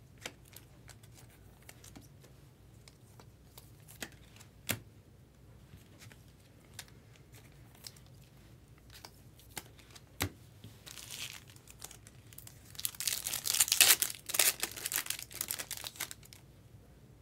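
Scattered light clicks of trading cards being handled and shuffled. Then, in the last few seconds, a foil Bowman Chrome card pack is torn open with a loud crinkling tear.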